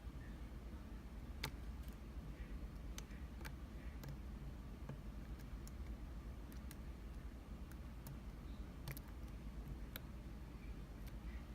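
Faint, irregular clicks of a lock pick and tension wrench working the pins of a pin-tumbler challenge lock, over a low steady hum.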